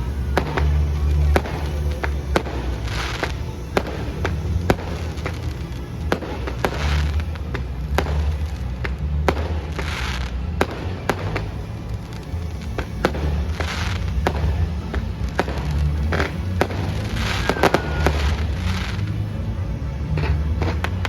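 Fireworks display bursting again and again: many sharp bangs and crackling, hissing bursts over loud show music.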